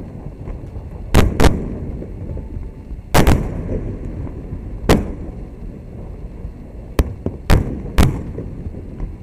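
Underwater fireworks bursting at the sea surface: a string of sharp booms, about seven in all at uneven spacing, over a continuous low rumble.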